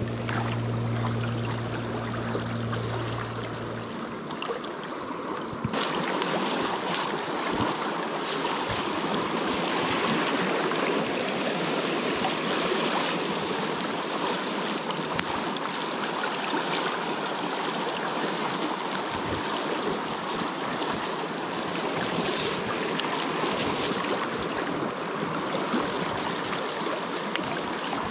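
Flowing stream water, a steady rushing. A low steady hum runs under it for the first four seconds. The sound changes abruptly about six seconds in, turning brighter and hissier, with a few brief swishes later on.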